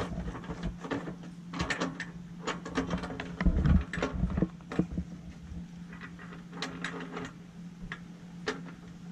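Scattered clicks and knocks of hands working the metal support leg of a Camco Secure Step RV step stabilizer, set on a plastic leveling block, with a heavier thump about three and a half seconds in.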